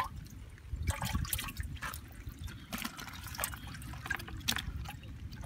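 Hands sloshing and splashing in muddy water in a small dug hole, groping for fish, with irregular short splashes and drips.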